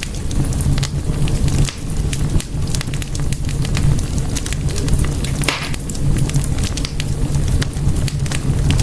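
Wood fire in a fireplace burning with a steady low rumble and frequent sharp pops and crackles, a louder burst of crackling about five and a half seconds in.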